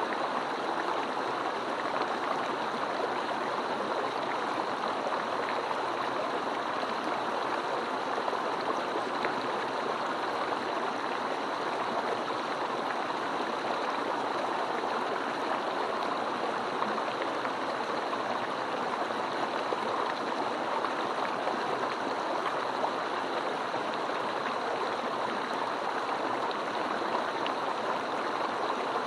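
Mountain stream flowing, a steady, unbroken rush of water.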